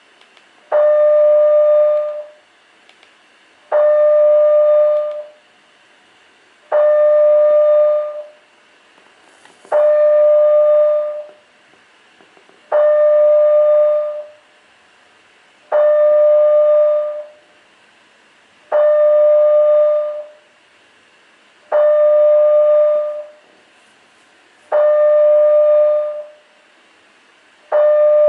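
Building fire alarm sounding a steady horn tone about 1.5 s long, then a pause of the same length, repeating once every three seconds. This slow pattern of about twenty signals a minute is the alert signal of a Canadian two-stage fire alarm system, sounded before a full evacuation signal.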